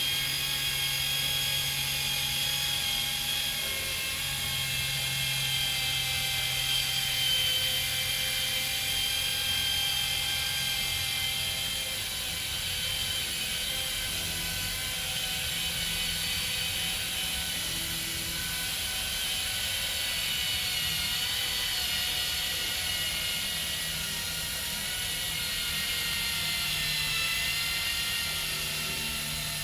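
Cordless mini polisher running continuously, its small pad cutting the paintwork with compound: a steady high whine that drifts slightly in pitch as it is worked along the panel.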